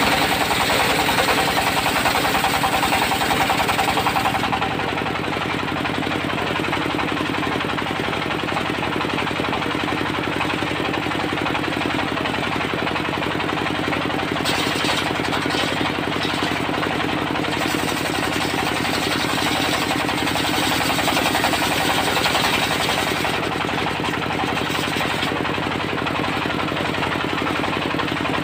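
Diesel engine of a portable circular-saw sawmill running steadily with a rapid, even chugging. It is louder for the first four seconds or so, then settles a little lower, with brief spells of added high hiss about halfway and near the end.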